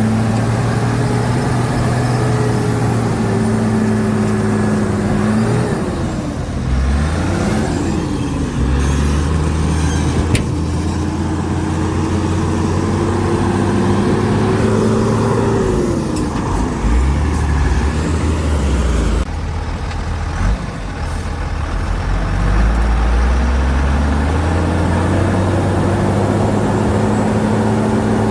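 Diesel engine of a Shantui DH17C2 bulldozer working under changing load. Its note holds steady, drops and wavers about six seconds in, runs lower through the middle, then climbs back up near the end.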